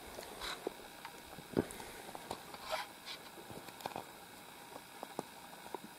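Faint, scattered crunches and small clicks of someone moving in snow, with three brief louder rustles: about half a second in, at about a second and a half, and near the three-second mark.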